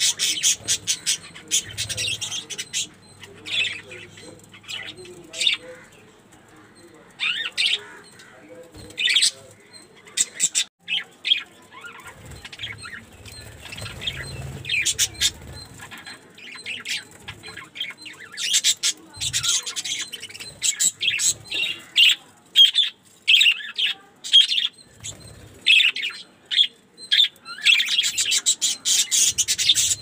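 A flock of budgerigars chirping and chattering, many short, high-pitched calls in busy bursts with quieter stretches between them.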